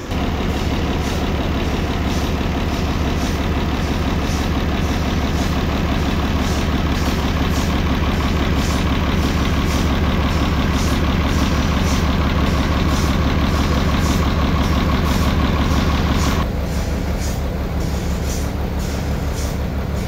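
Sawmill band saw machinery running steadily, with a heavy low engine drone and a faint tick repeating about twice a second. About three-quarters of the way through, the higher part of the noise drops away while the drone carries on.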